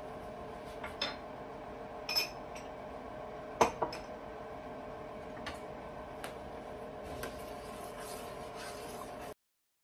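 Metal spoon clinking and scraping against a copper pot while stirring thick pureed soup, with a sharp clink about three and a half seconds in the loudest. A steady hum runs underneath, and the sound cuts off suddenly near the end.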